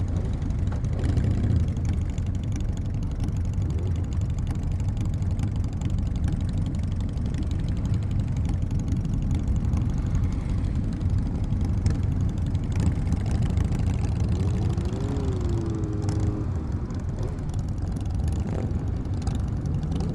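Motorcycle engines running steadily at low speed in a dense group ride, the rider's own 2013 Kawasaki Ninja 636 among them, heard as a constant low drone through a helmet-mounted camera with some wind noise.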